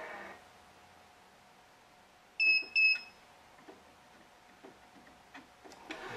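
Wise 2086 electronic stringing tensioner beeping twice in quick succession, two short, high-pitched beeps a fraction of a second apart. A few faint clicks of clamps being handled follow.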